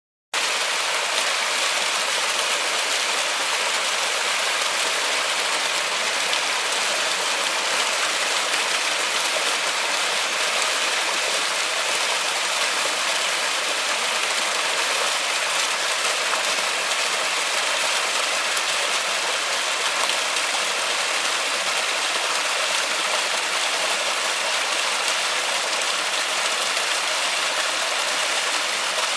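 Steady heavy rain pattering on forest foliage, setting in abruptly just after the start and then holding an even, unbroken hiss.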